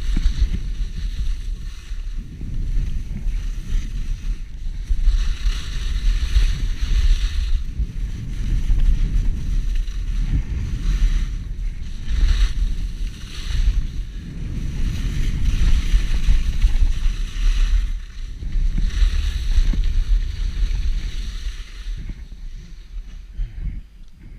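Wind buffeting the microphone of a skier's action camera on a downhill run, with the hiss of skis sliding on packed snow that swells and fades every few seconds as the skier turns. It gets quieter near the end.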